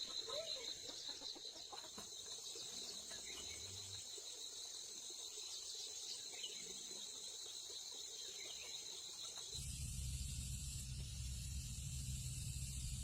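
Insects trilling steadily, with a few faint bird chirps. About nine and a half seconds in, the sound changes abruptly to a low steady rumble with hiss.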